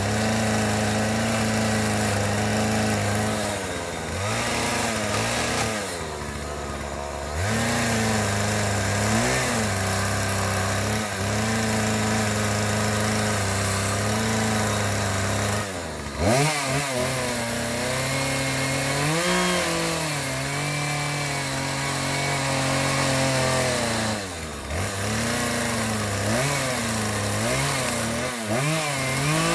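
Small petrol engine running steadily, its pitch repeatedly dropping and then climbing back several times, as an engine does when it is loaded and then let off.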